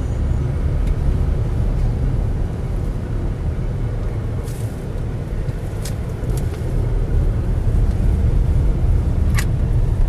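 Jeep Grand Cherokee 3.6 V6 on the road, heard from inside the cabin: a steady low rumble of engine and tyre noise during a road test after an engine mount replacement, with a few short clicks.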